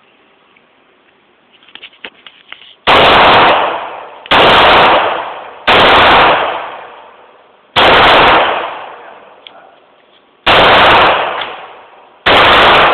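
Six pistol shots from a Glock in .45 GAP, fired one at a time at an uneven pace, starting about three seconds in. Each shot overloads the phone's microphone and dies away slowly. A few faint clicks come just before the first shot.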